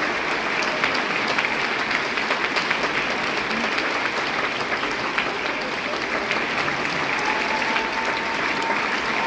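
Steady, sustained applause from a theatre full of people clapping together, a dense patter of many hands with no let-up.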